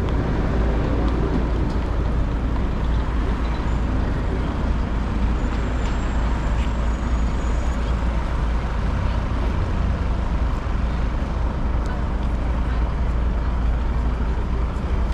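Outdoor city ambience: a steady low rumble of distant road traffic.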